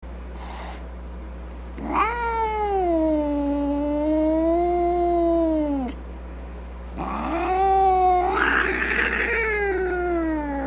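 A cat yowling in a threatening, drawn-out way: two long wavering calls of about four seconds each, the second one harsher and raspier in its middle. This is the growling yowl of an angry or defensive cat.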